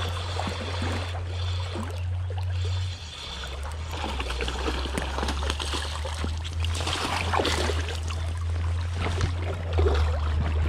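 Shallow creek water running over stones, with splashing as a hooked brown trout thrashes at the surface. A steady low rumble lies underneath.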